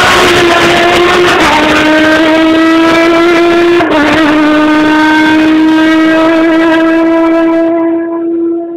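Sports-prototype race car engine at high revs, accelerating hard up a hill-climb course. It shifts up twice, about one and a half and four seconds in, and after each shift the pitch climbs slowly. The note fades near the end.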